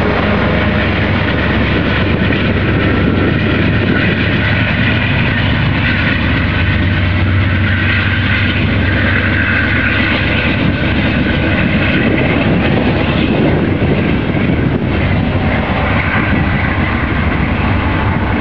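Amtrak passenger train pulling away: the trailing GE Genesis diesel locomotive's engine running under power with a steady low hum, over the rumble of the coaches' wheels on the rails.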